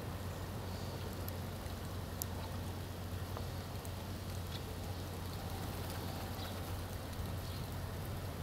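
Steady outdoor background hiss with a constant low hum and a few faint ticks.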